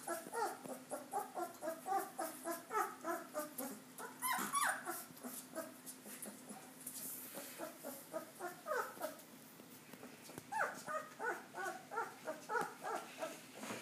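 Young puppies crying in rapid runs of short high-pitched cries, several a second. The cries thin out in the middle and pick up again near the end.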